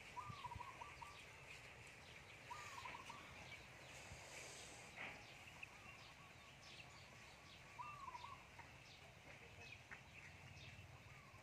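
Faint calls of a hen and her chicks feeding: short call-like notes repeated every two to three seconds, with small high peeps in between.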